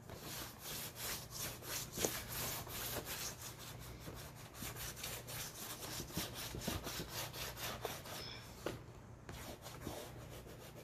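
White chalk scraping across black poster board in quick back-and-forth strokes, several a second, as a shaded area is layered darker; a brief pause near the end.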